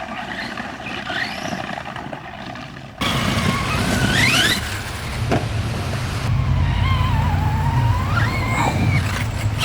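Radio-controlled car's electric motor whining, its pitch rising and falling with the throttle in repeated quick run-ups. About three seconds in the sound cuts abruptly to another run, where the motor whine climbs and wanders over a loud low rumble.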